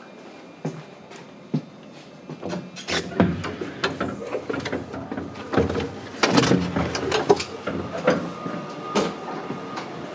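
Irregular footsteps, knocks and clatters as someone walks through the connecting sliding doors and coupled cab-end gangway of a stationary JR West 227 series electric train. The noise comes in about two and a half seconds in, and a faint steady tone joins it near the end.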